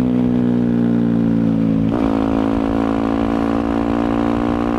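Yamaha WR250F's single-cylinder four-stroke engine running through an FMF exhaust, held at steady revs, with a brief shift in pitch about two seconds in.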